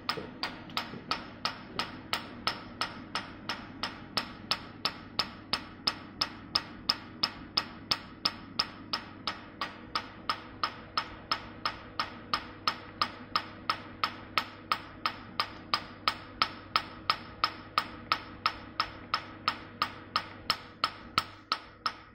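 Nd:YAG laser handpiece firing pulses on facial skin: a sharp snap about three times a second, evenly spaced, over a steady low hum.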